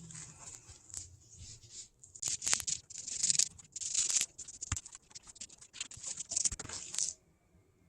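Irregular scratchy, rustling strokes of upholstery material being handled and marked on a work table, with a few light knocks. The strokes begin about two seconds in and stop near the end.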